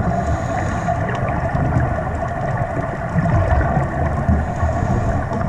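Muffled underwater sound through a camera's waterproof housing: a low, irregular rumble and gurgle of scuba divers' exhaled bubbles over a steady hum with several held tones.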